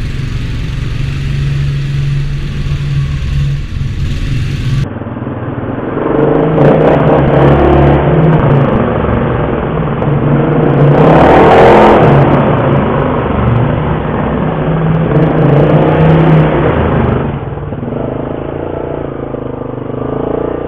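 ATV engine running under way through a corrugated steel culvert tunnel, its noise loud and echoing off the metal walls and loudest about halfway through. It drops back a few seconds before the end, as the machine comes out onto open trail.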